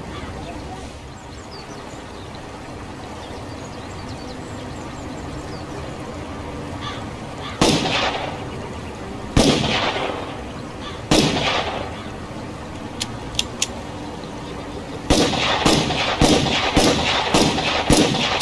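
Revolver shots: three single shots about two seconds apart, each with a short echoing tail, then a few light clicks, then six shots fired in quick succession. Steady background noise runs beneath until the first shot, seven or so seconds in.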